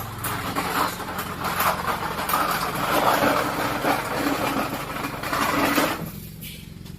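A machine running with a steady low hum under a loud rushing noise; the rushing drops away sharply about six seconds in, leaving the hum.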